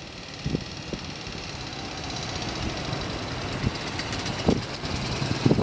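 Ural M67-36 sidecar motorcycle's flat-twin engine running and getting louder as the bike pulls out, with occasional sharp knocks through the exhaust.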